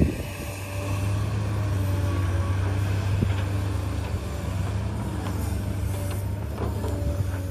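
Hydraulic excavator's diesel engine running steadily, with a few sharp knocks.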